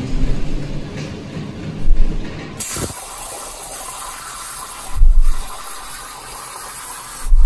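A 65-amp Hypertherm Powermax plasma torch on a CNC table edge-starting on 3/4 inch steel plate: the arc fires suddenly about two and a half seconds in and cuts with a steady loud hiss. Dull low thumps come about two, five and seven seconds in.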